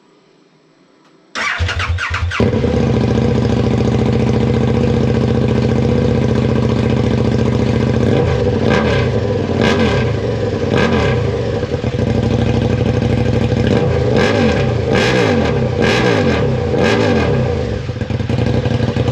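KTM 1290 Super Duke's V-twin engine running with its exhaust removed, very loud. It cranks and fires about a second in, idles, then is blipped several times from about halfway through, and is shut off at the very end.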